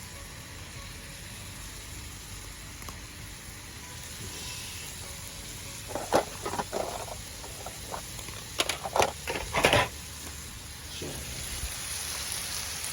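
Food with green onions and soy sauce sizzling steadily in a pan. Two clusters of sharp taps and knocks come about six and nine seconds in, and the sizzling grows louder near the end.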